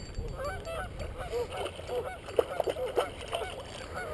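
Geese honking, many short calls overlapping, several a second.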